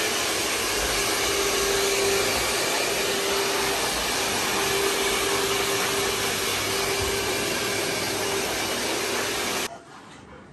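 Handheld hair dryer blowing on a Rottweiler's coat: a steady rush of air with a faint hum. It cuts off suddenly near the end.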